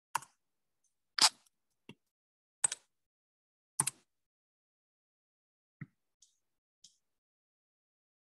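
Separate sharp clicks and taps in an otherwise quiet room, as of desk work by hand: five louder clicks in the first four seconds, the loudest about a second in, then a few faint ticks about six to seven seconds in.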